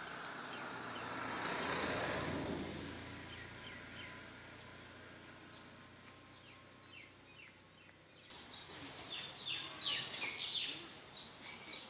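Small birds chirping outdoors, short repeated downward calls, faint at first and becoming busy and loud from about eight seconds in. A broad rushing noise swells and fades over the first few seconds.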